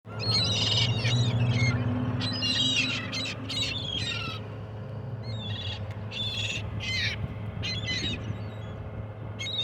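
Seagulls calling: a run of short, repeated calls from several birds, crowded together in the first few seconds and more spaced out later. A steady low hum runs underneath.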